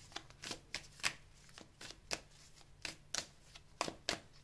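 Tarot cards being shuffled by hand: an irregular run of crisp card snaps, a few a second.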